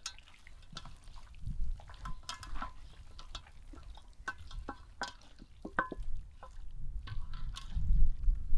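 Hands mixing raw chicken drumsticks and wings with spices in an enamel bowl: irregular wet squelches and slaps of the meat, with pieces knocking against the bowl. A low rumble builds and is loudest near the end.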